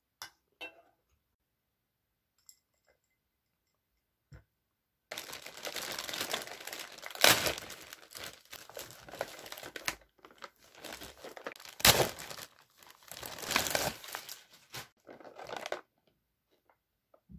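A few light knocks of a wooden spoon in an empty pan, then a plastic delivery mailer bag being ripped open and crumpled for about ten seconds, with two loud sharp rips a few seconds apart.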